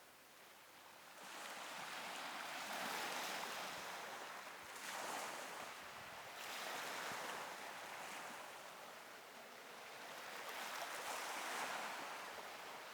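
Sea waves washing onto the shore, the surf rising and falling in about four swells.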